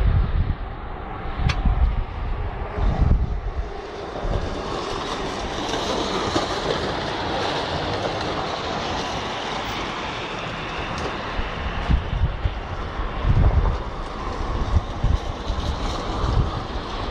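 A large vehicle or machine running close by, its noise swelling through the middle and easing off again, with wind gusting on the microphone near the start and end.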